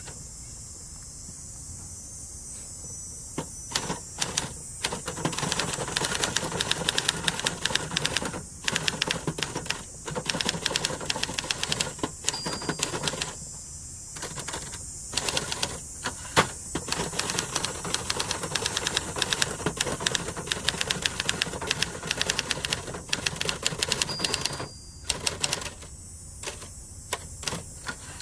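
A 1970s Adler Gabriele 25 manual typewriter being typed on. After a few quiet seconds, a few single key strikes give way to a quick, continuous run of strikes, broken twice by short pauses.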